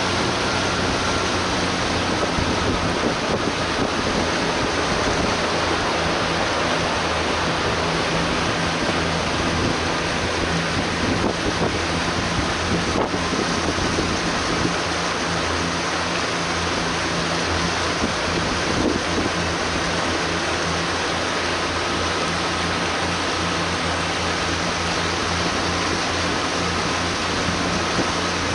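Boat under way: the engine runs steadily under a constant rush of water along the hull, with wind buffeting the microphone.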